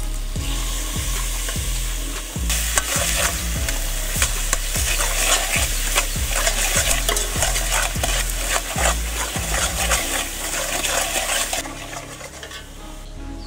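Spice paste frying in oil in an aluminium pot, sizzling while a metal ladle stirs and scrapes it against the pot. The sizzle gets louder about two and a half seconds in and dies down near the end.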